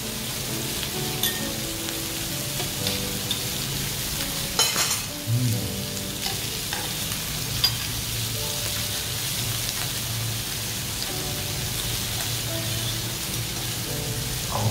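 Pork belly and minari sizzling steadily on a hot tabletop griddle, with a few sharp clicks of metal utensils against the pan, the clearest about five and eight seconds in.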